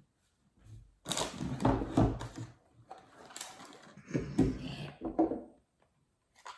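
Irregular clattering and rustling of small objects being handled, in several uneven bursts with short gaps between.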